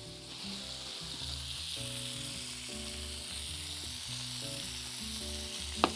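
Meat ribs sizzling as they brown in a frying pan, a steady hiss; a short rising squeak near the end.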